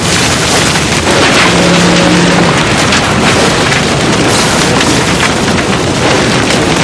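Heavy rain and wind: a loud, dense, steady noise, with a brief low steady tone about one and a half seconds in.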